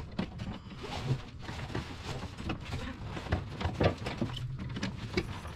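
Scattered light clicks and knocks of hands and metal tools working on a car's brake master cylinder and ABS module assembly and its brake line fittings in the engine bay, with a sharper knock a little under four seconds in.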